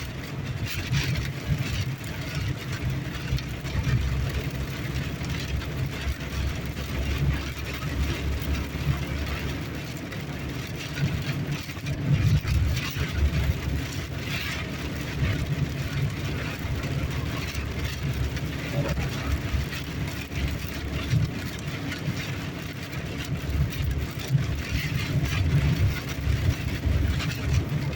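Strong gusty wind buffeting a car, heard from inside the cabin as an uneven low rumble that swells and eases with the gusts.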